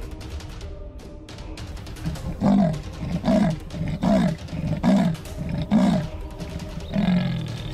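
A leopard calling with its rasping, saw-like grunts: about six strokes in a steady rhythm, each falling in pitch, the last one longer and deeper.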